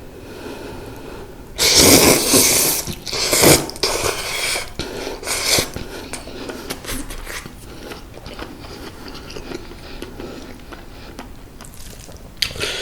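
Person eating mala-tang ramen noodles: two loud slurps about two and three and a half seconds in, then quieter chewing.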